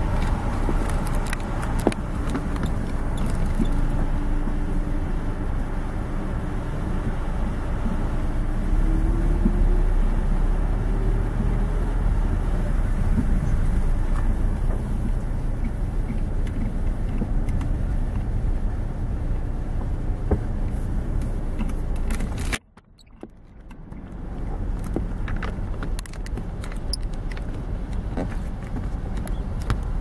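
Car driving slowly, its engine and road noise heard from inside the cabin, with small clicks and rattles and a faint tone that rises slowly in pitch. About 22 seconds in the noise drops away suddenly, then builds back over a couple of seconds.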